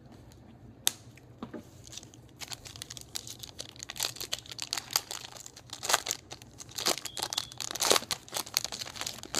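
Foil wrapper of a trading-card pack being torn open and crinkled in the hands: one sharp click about a second in, then a dense run of crackling from about two seconds in.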